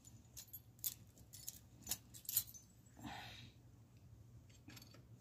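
Small metal parts clicking and clinking as they are handled during valve reassembly: a handful of sharp separate clicks, with a short rubbing sound about three seconds in.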